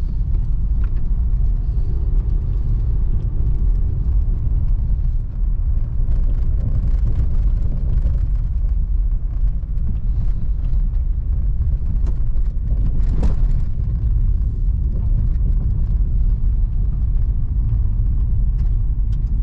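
A car driving along a road, heard from inside as a steady low rumble of engine and road noise. There is one short knock about thirteen seconds in.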